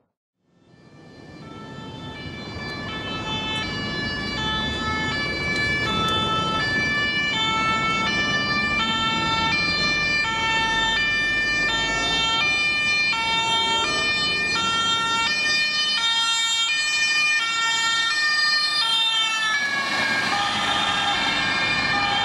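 German two-tone emergency siren (Martinshorn) on a VW Transporter emergency doctor's car, switching between a low and a high tone about every 0.7 s over traffic noise. It swells up over the first few seconds, and the pitch drops near the end as the vehicle passes and moves away.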